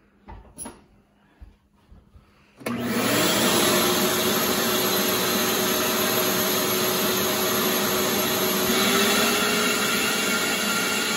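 After a few light knocks, a vacuum cleaner driving a homemade vacuum-forming box switches on abruptly about three seconds in. Its motor tone rises quickly to speed and then runs steadily. Near the end the pitch steps up slightly as the heated plastic sheet in its frame is pressed down over the box and the airflow through the hose is choked off.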